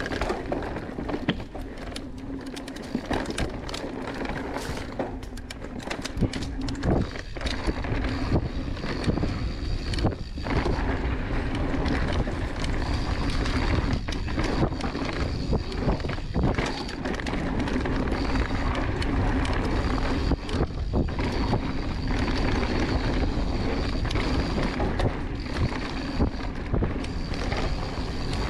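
Mountain bike descending a dirt singletrack: tyres rolling over dirt with frequent clicks and knocks from the bike over bumps, and wind buffeting the microphone. A steady high buzz, typical of the rear hub's freewheel while coasting, drops out now and then. It gets louder after about seven seconds as the speed picks up.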